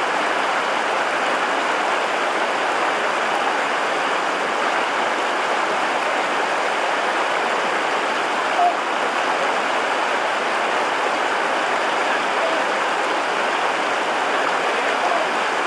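Small waterfall pouring into a deep pool on a mountain stream: a steady rush of falling water.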